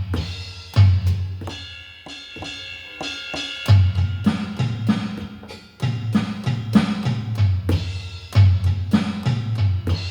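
Donner drum kit played in a steady groove: repeated bass drum thumps under snare and tom hits, with a cymbal ringing briefly about two seconds in.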